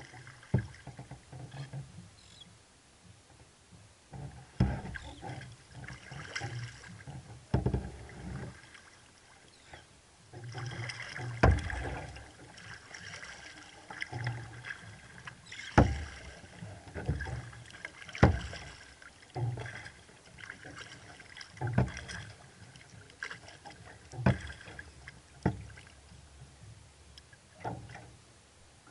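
Sea kayak being paddled with a double-bladed paddle: the blades dip and splash into the water every second or two, with water slapping and dripping against the hull and some sharp knocks.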